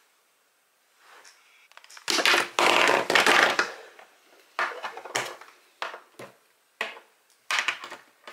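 Crinkling and rustling of packaging being handled close by: one long, loud crinkle about two seconds in, then a string of shorter crackles.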